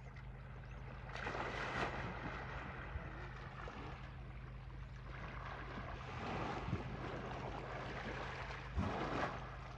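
Water sloshing and splashing as Asian elephants swim, coming in surges, with the sharpest splash near the end, over a steady low hum.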